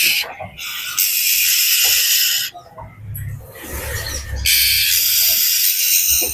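Oriental magpie-robin (kacer) giving long, harsh, rasping churrs in repeated bursts, each lasting one to two seconds. This is the agitated, excited call that keepers play to provoke other kacer. A low rumble runs under the second half.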